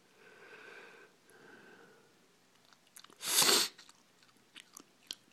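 A person sneezing once, a loud, short burst a little past halfway, after two faint breaths; a few faint clicks follow.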